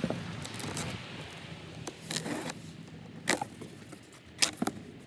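Scraping and rustling from handling a cardboard shipping box, with a few sharp knocks, the loudest near the end.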